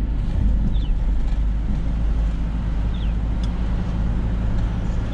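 Car cabin noise while driving: a steady low rumble of engine and road.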